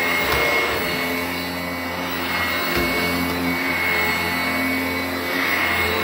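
Sanitaire 886E commercial upright bag vacuum running steadily on carpet, a constant motor whine whose pitch shifts slightly now and then.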